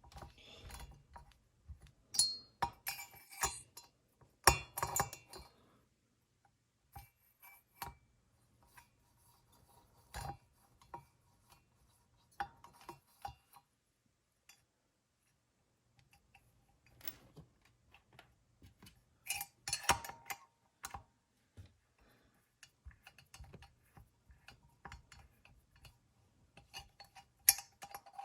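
Hand tools and metal chainsaw engine parts clinking, clicking and rattling in irregular bursts while a cylinder is bolted onto a Husqvarna 55 chainsaw and set up for timing. The loudest clatters come a few seconds in and again past the middle.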